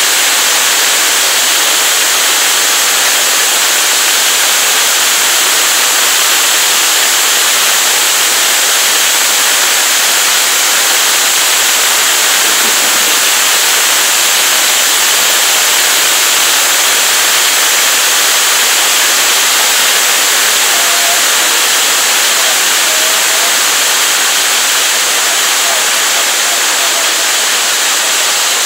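Hailstorm with heavy rain: hailstones and rain pelting the ground, leaves and road in a loud, steady hiss that does not let up.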